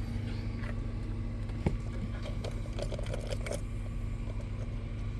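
Steady low mechanical hum, with one sharp click about a second and a half in and a few light clicks and rattles around three seconds in.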